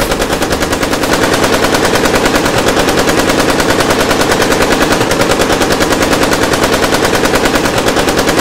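Machine gun firing on automatic: a long, unbroken stream of rapid, evenly spaced shots.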